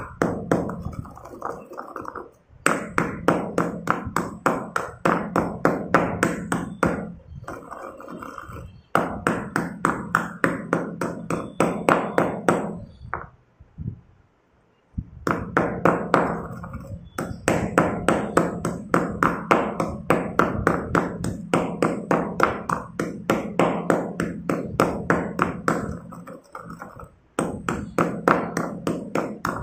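Stone pestle pounding reddish-brown chalk pieces in a stone mortar: quick crunchy knocks about four a second, in runs broken by short pauses, with a longer stop about halfway.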